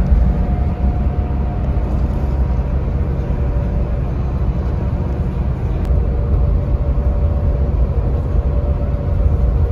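Scania K400IB 400 hp coach cruising on the expressway: a steady, loud low engine and road rumble with no change in pace.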